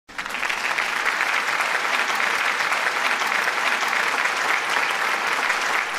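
A crowd applauding, a steady dense clapping that tails off at the end.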